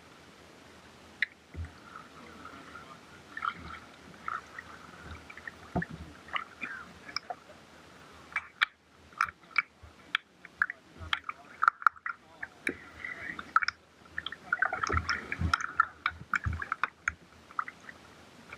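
Water splashing and gurgling around a kayak as it is paddled, with many irregular sharp clicks and knocks that come more often in the second half.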